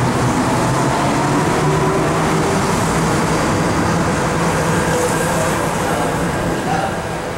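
Las Vegas Monorail train running along the guideway past the station platform, a steady loud hum of motors and rolling tyres that eases off slightly near the end.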